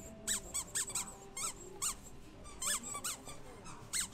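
A squeaky dog toy being squeezed over and over, giving about a dozen short squeaks in uneven bursts. Each squeak rises and falls in pitch.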